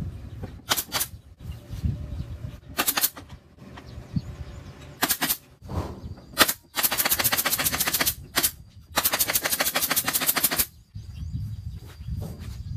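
Cordless power driver driving screws into the wooden panels of a subwoofer box: three short bursts, then two longer rapid rattling runs of about a second and a half each in the second half.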